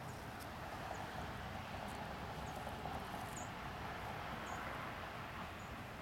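Outdoor background: a steady low rush with about five faint, short, very high chirps scattered through it.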